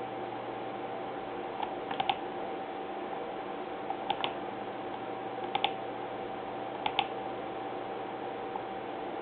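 Small groups of sharp clicks at a computer, two or three at a time, four times, over a steady hiss with a faint steady tone.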